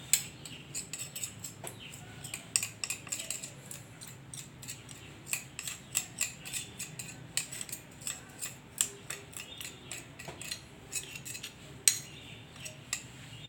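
Metal spoon clinking and scraping against a container while spooning out honey: many light, irregular clicks.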